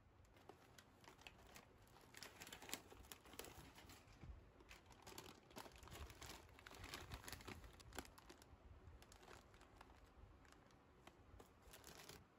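Plastic and foil snack packets, including potato-chip bags, crinkling faintly as they are handled and set down.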